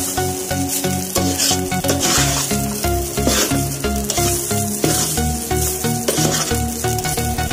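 A spoon stirring rice in a metal pot, with sizzling and scraping strokes about once a second, over background music.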